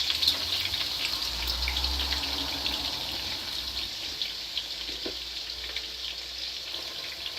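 Onions sizzling in hot oil in a pan, a steady hiss that slowly dies down.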